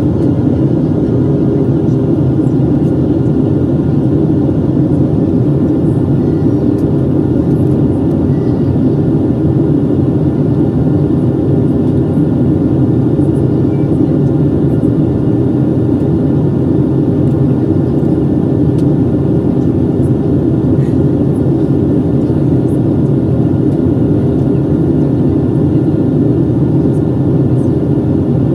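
Steady engine and airflow noise inside the cabin of a Boeing 737-700 with CFM56-7B turbofans, heard from a window seat over the wing on final approach. A deep even rush with a few faint steady tones above it.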